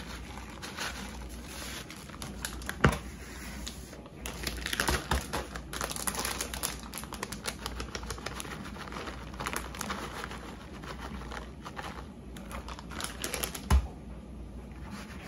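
Plastic bags of shredded cheese crinkling and rustling as the cheese is shaken out into a mixing bowl. Two sharper knocks stand out, about three seconds in and near the end.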